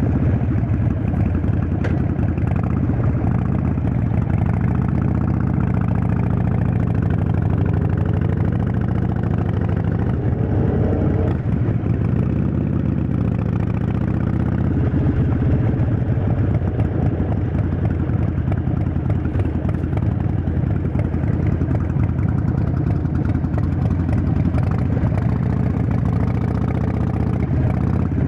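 Harley-Davidson Forty-Eight's 1200 cc air-cooled V-twin running through a Vance & Hines aftermarket exhaust, first at idle and then riding off at low speed, its pitch rising and falling a little with the throttle.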